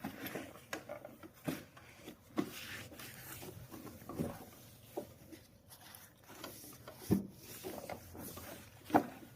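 Scattered light knocks, clicks and rubbing from handling and wiping the parts of a Singer Quantum Stylist 9960 sewing machine while cleaning it, with two sharper knocks about seven and nine seconds in.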